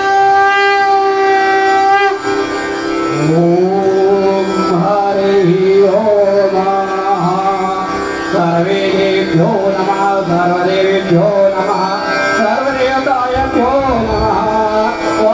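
A conch shell is blown in one long steady blast that ends about two seconds in. A man then chants a Hindu devotional hymn in a melodic, sung line over a steady drone.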